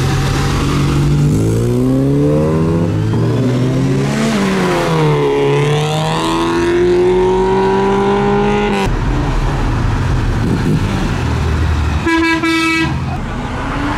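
Car engine accelerating away hard, its revs climbing, dropping at a gear change and climbing again before cutting off suddenly. Near the end a car horn gives one short toot.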